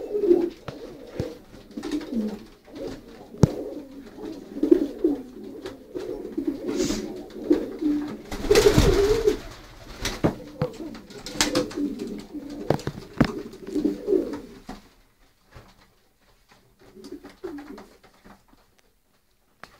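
Horseman pouter pigeons cooing, low rolling coos repeated one after another, with sharp clicks scattered among them and a brief rush of noise about nine seconds in. After about fifteen seconds the cooing drops to a few faint coos.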